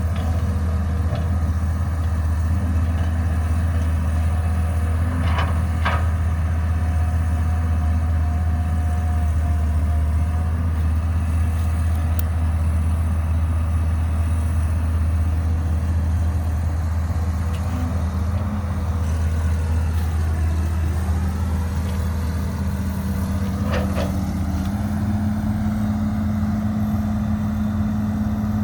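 Caterpillar 312B excavator's diesel engine running steadily, with a few sharp knocks and a slight rise in engine pitch near the end.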